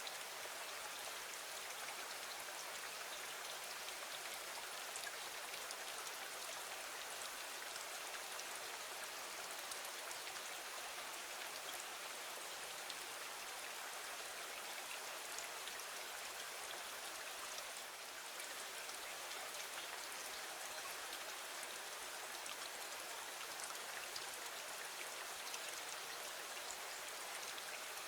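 Steady rain falling against a window, an even hiss with fine specks of individual drops.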